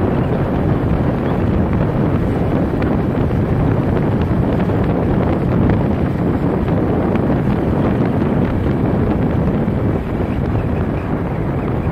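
Wind buffeting the microphone of a moving motorbike: a steady, loud rush with the bike's running noise underneath.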